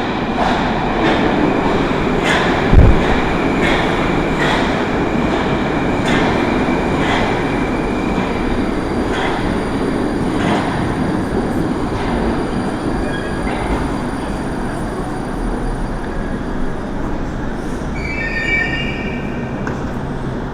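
Moscow Metro train running into the station, a steady rumble with wheels clicking over the rail joints, the clicks spreading out as it slows. There is a single low thump about three seconds in, and short high squeals near the end.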